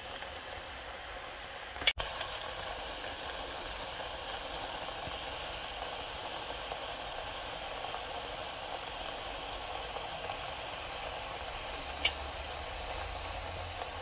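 Steady sizzling hiss of a cottage pie cooking in a Trangia pot over its spirit burner, turned down with the simmer ring. A sharp click comes about two seconds in and a fainter one near twelve seconds.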